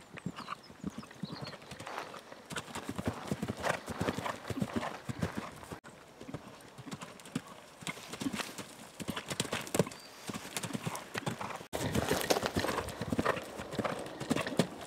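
Horse's hoofbeats cantering on turf: a quick, uneven run of dull thuds. The sound drops out for an instant twice.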